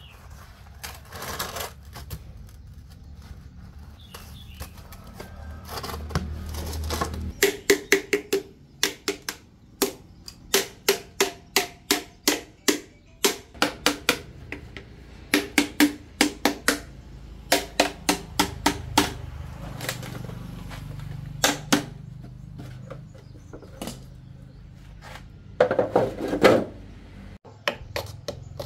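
Runs of sharp metal taps and knocks, about two a second at their busiest, many with a short ringing tone, as steel concrete-mold parts and pins are struck and handled. A louder scraping clatter comes near the end.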